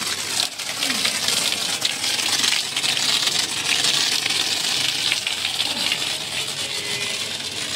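Jet of water from a garden hose's brass spray nozzle hissing and spattering against a foam-covered car body and the wet ground, loudest through the middle and easing near the end.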